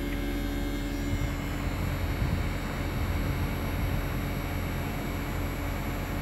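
Daikin mini-split outdoor unit running steadily: an even hum from the inverter compressor with a rush of air noise from the condenser fan, unchanging throughout.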